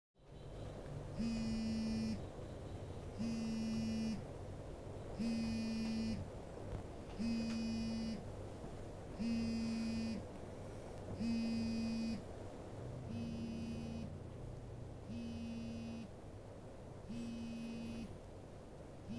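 Mobile phone buzzing on vibrate with an incoming call. Each buzz lasts about a second and comes every two seconds, about ten in all, growing fainter in the second half.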